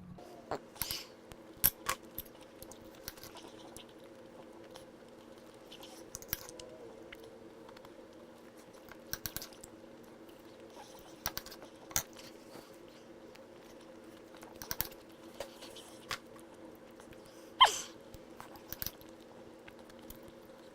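Knife and fork clicking and scraping on a plate at irregular intervals as steak is cut and eaten, over a steady low hum.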